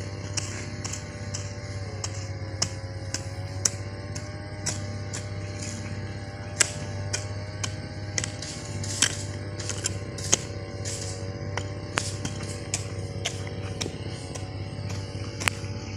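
Small hand hoe chopping and scraping into soft garden soil, giving short, irregular knocks, over a steady engine drone in the background.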